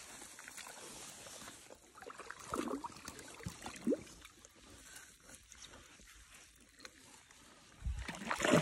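Quiet footsteps of a person walking over grass in flip-flops, with soft scuffs and ticks and two short squeaks a few seconds in. Near the end comes a louder rustle as leaves and stems brush past.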